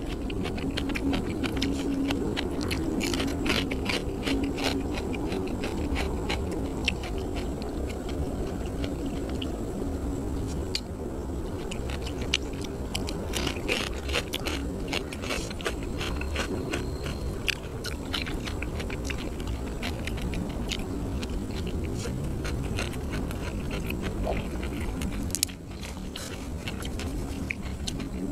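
A person chewing a mouthful of food close to the microphone, with many irregular wet mouth clicks and crunches.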